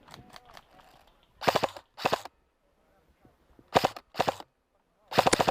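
Airsoft electric gun firing short full-auto bursts: five quick bursts of rapid shots, the first four in two pairs and the last near the end.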